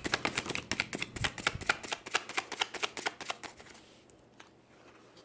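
Tarot deck being shuffled by hand: a quick run of card clicks and flutters that thins out and stops about three and a half seconds in.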